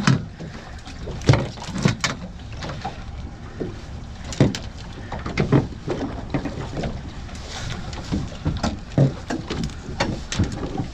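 Irregular knocks and thumps aboard a small fishing boat over a steady low rumble of wind on the microphone.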